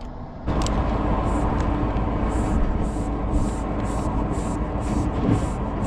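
Bicycle floor pump inflating a soft rear tyre: a short hiss of air with each stroke, about two strokes a second, over a steady low rumble that starts suddenly about half a second in.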